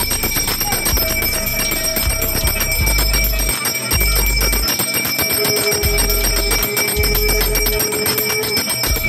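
Hand bell rung rapidly and without pause during a puja, a fast even stream of clapper strikes over a steady high ringing.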